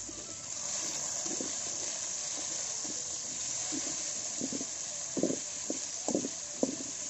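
Sliced onions sizzling in hot oil in an aluminium wok over an open fire: a steady frying hiss. A few short, louder knocks and scrapes sound about a second and a half in and again between about four and a half and seven seconds, as the pan is stirred.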